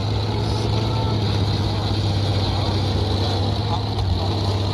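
Tank engine sound effect: a steady, even engine drone with a strong low hum.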